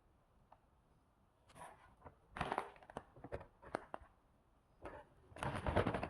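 Plastic food packet crinkling and rustling as it is handled: short irregular crackles starting about a second and a half in, growing longer and denser near the end.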